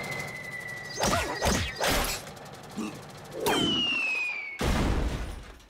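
Cartoon sound effects: a steady high whine over a low whirr that fades out in the first second, then a few quick whooshes and whacks, a falling whistle, and a loud crash about a second before the end.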